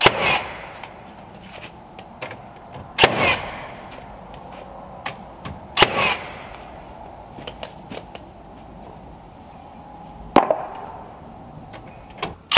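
Nail gun driving nails into wooden strips on a cabin wall, one shot every three seconds or so. Each is a sharp crack with a short tail just after it, with small handling clicks in between.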